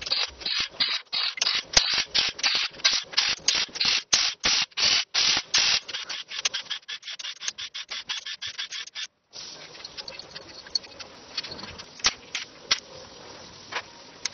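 Rapid back-and-forth scraping or rubbing strokes of a hand tool worked on an engine part, about four strokes a second. They stop abruptly about nine seconds in and give way to fainter scattered clicks and scrapes.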